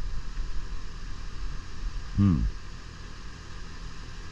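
Outdoor air-conditioner condensing unit running with a steady low hum and hiss. About two seconds in comes one short voice-like sound that falls in pitch.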